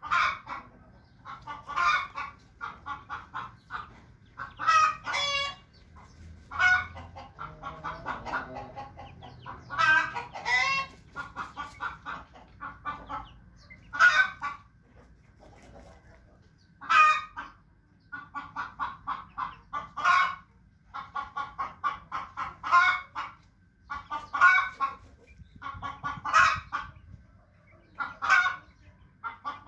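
Chickens clucking in quick runs of short notes, broken every two to three seconds by a louder, longer call.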